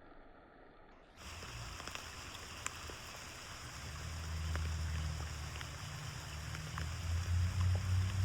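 Rain falling on a backyard pond: a steady hiss with scattered drop ticks, over a low rumble that grows louder toward the end. It comes in abruptly about a second in, after a quieter stretch.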